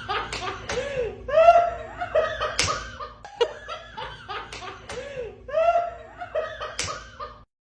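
Laughter in repeated short bursts, with two sharp smacks about two and a half and seven seconds in; the sound cuts off shortly before the end.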